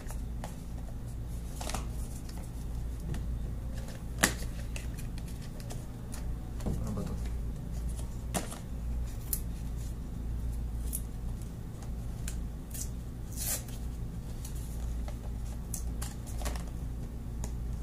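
Hands handling and opening a small cardboard retail box and its plastic packaging: scattered rustles, scrapes and clicks at irregular times, with one sharp click about four seconds in, over a steady low hum.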